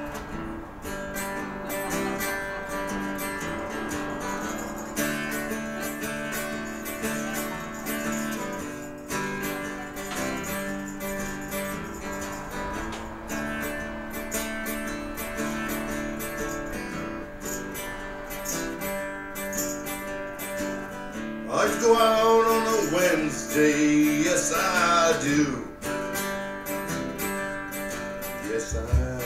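Live band music led by a strummed acoustic guitar playing steady chords. A louder, sliding melodic line rises over it for a few seconds about three-quarters of the way through.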